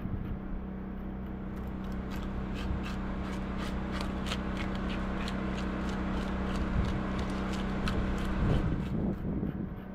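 Fish being scaled: quick rasping strokes of a scaler against a largemouth bass's scales, many in a row from about a second and a half in until near the end. A steady low hum sits underneath.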